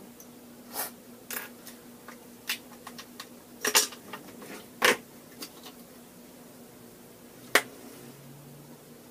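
Small hard objects clicking and clacking against a countertop as they are picked up and set down, a dozen or so irregular knocks, loudest in the middle and once more near the end. A steady low hum runs underneath.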